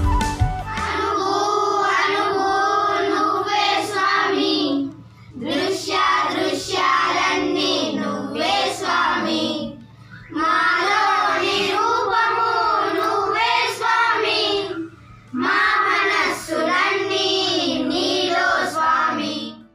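A group of children singing a devotional song together, in four phrases with short pauses between them.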